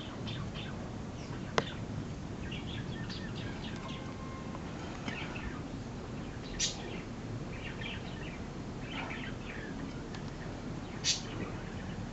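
A homemade PVC bolt-action airgun firing twice, about four and a half seconds apart, each shot a short hissing pop. A single sharp click comes about one and a half seconds in, with birds chirping throughout.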